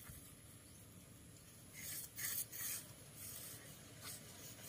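Fingers rubbing and scraping through dry potting mix around a potted succulent. There are a few faint rasping rustles, most of them about two seconds in.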